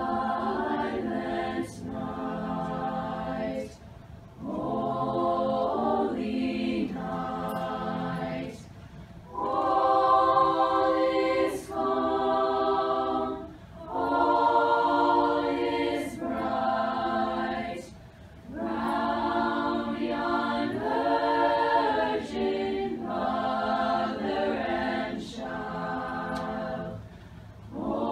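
A mixed high school choir singing, holding chords in phrases of a few seconds with short gaps between them.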